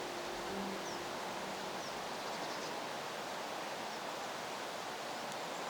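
River water running steadily, an even rushing hiss, with a few faint high chirps about a second in.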